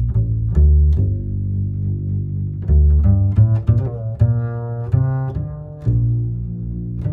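Background music: a low string line of plucked and bowed notes, one after another, with a strong bass.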